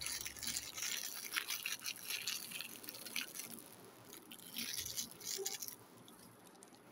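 Thin clear plastic wrapper crinkling and crackling in irregular bursts as fingers work a small toy packet open; the crinkling stops near the end.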